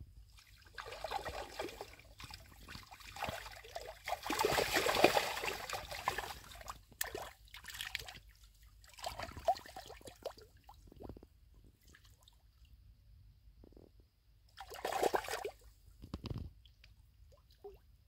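Splashing and sloshing in shallow, reedy margin water, in irregular bursts: the longest about four to six seconds in, another shorter one around fifteen seconds in.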